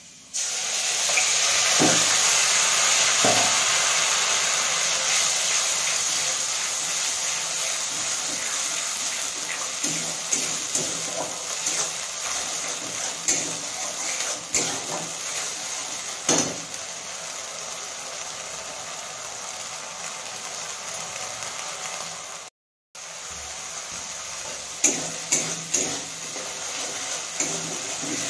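Ground masala paste poured from a mixer-grinder jar into hot oil in a steel kadai, starting with a sudden loud sizzle that slowly dies down as it fries. A spatula knocks and scrapes against the pan now and then.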